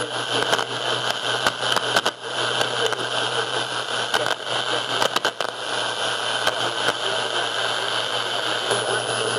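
AM/FM radio static and hiss while tuning between stations, over a steady low hum, with sharp crackles and clicks through the first several seconds.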